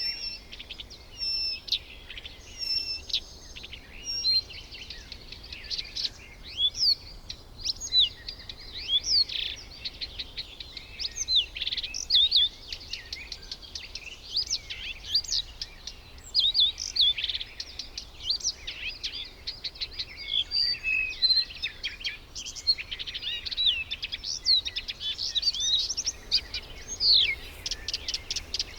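Birds calling, with many short high chirps and whistles overlapping in a busy, continuous chorus.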